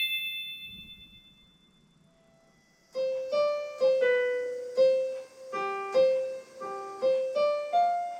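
Casio LK-520 electronic keyboard on a piano voice, playing a slow, simple melody one note at a time, about eleven notes. Before the melody starts, a high ringing tone fades out over the first two seconds.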